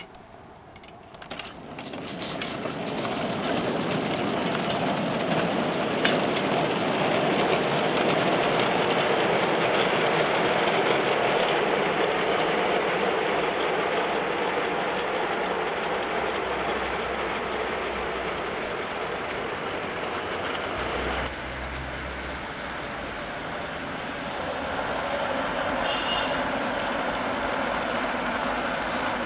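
Accucraft gauge 1 live steam, gas-fired Southern Pacific M-6 model locomotive pulling away and running: a steady hiss of exhaust steam that builds up about two seconds in, with a couple of sharp clicks soon after.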